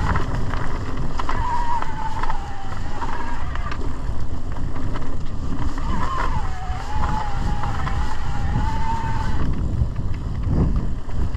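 Mountain bike riding down a trail: wind buffeting the camera microphone and a steady rumble of the bike over the ground, with a thin wavering whine that stops about nine and a half seconds in.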